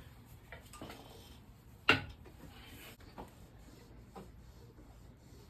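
Scattered light metallic clicks and one sharp knock about two seconds in, from hand tools being worked on a truck's wheel.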